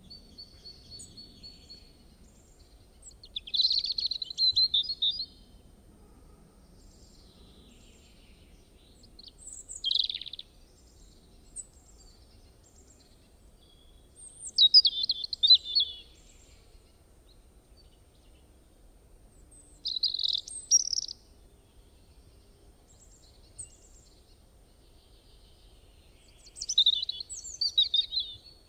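A songbird singing short, high-pitched, warbling phrases, each about one to two seconds long, repeated five times at intervals of about five to six seconds, over a faint steady background hiss.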